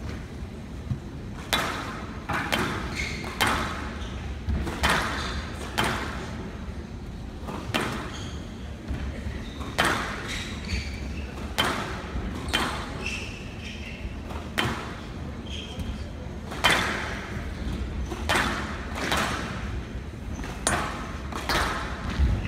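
Squash rally on a glass court: sharp hits of racket and ball against the walls about once a second, each ringing briefly in the hall, with short high shoe squeaks on the court floor and voices murmuring in the crowd.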